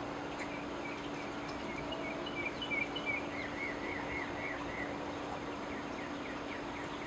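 A bird singing a run of short, repeated high chirps, about three a second, for roughly four seconds, over steady outdoor background noise and a faint low hum.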